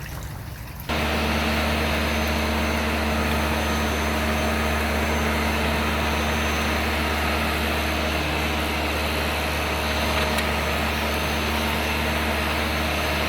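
Flymo Easiglide 300 electric hover mower running steadily: a motor-and-fan hum with a rush of air, starting suddenly about a second in.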